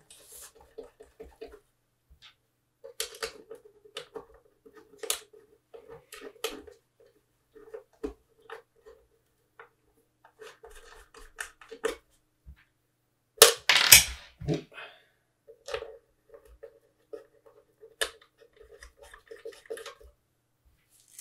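Small screws being done up by hand on the metal cover of an astronomy filter wheel: scattered light clicks, scrapes and short rubbing squeaks of the screws and tool turning, with a louder clatter of sharp clicks a little past halfway.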